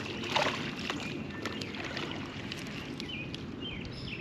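Steady low outdoor background aboard a small fishing boat, with a few clicks and knocks in the first second. Several short bird chirps come near the end.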